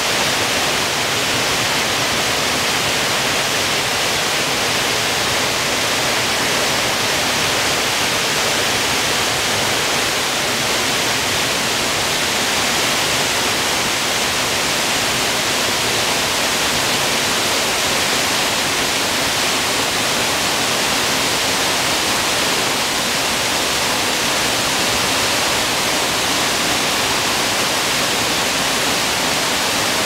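Steady, even rush of water from Shiraito Falls: the many thin streams of the waterfall's wide curtain and the clear stream flowing from it over rocks.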